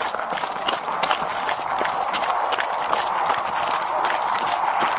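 Footsteps crunching on rough ground at a quick, even pace, with the gear on the wearer's body rattling at each step, heard through a body-worn camera over a steady rushing noise.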